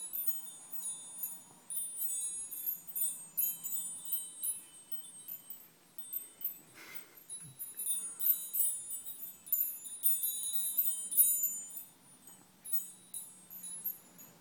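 Small metal tube wind chime held up by hand and swinging, its tubes struck over and over and ringing with high, clear, overlapping tones. The ringing thins out briefly around the middle, where there is a short rustle.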